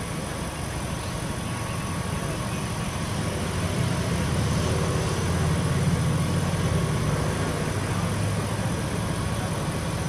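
A steady engine drone, low-pitched, with faint steady whining tones above it, swelling a little in the middle.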